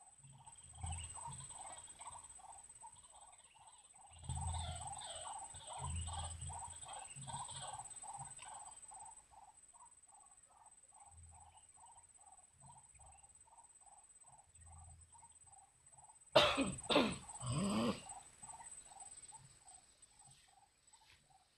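A small animal call repeating steadily about three times a second, over a faint steady high-pitched whine. About three-quarters of the way through, a loud burst of rustling and knocking noise lasts a second or two.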